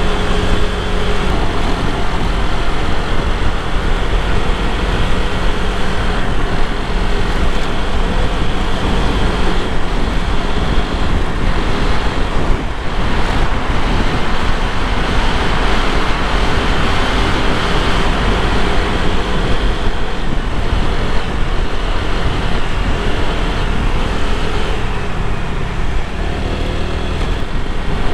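Onboard sound of a Honda PCX scooter riding at road speed: steady wind and road rush over the hum of its single-cylinder engine. The noise grows fuller for several seconds in the middle while riding through a tunnel.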